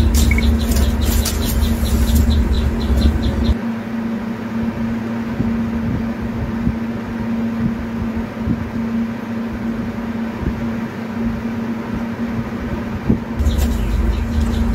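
Steady machine-like hum with one constant low tone. A deep rumble and fast ticking, about four ticks a second, run for the first three and a half seconds, then drop away and return near the end.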